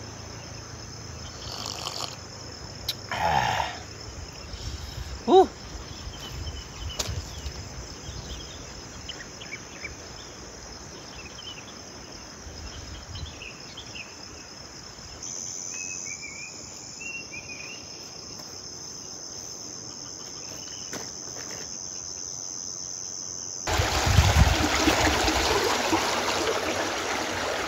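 Insects buzzing steadily at a high pitch over quiet lakeside ambience, with one short pitched chirp about five seconds in. About twenty-four seconds in, this gives way abruptly to louder rushing water flowing down a concrete channel.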